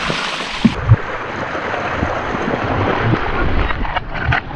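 Wind buffeting the microphone over a steady wash of surf, with two short thumps about a second in.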